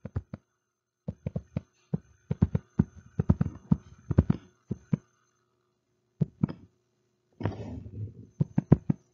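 A stylus tapping and scratching on a tablet screen while letters are handwritten: a run of sharp clicks in quick clusters, pausing briefly twice, with a brushing stroke and more clicks near the end.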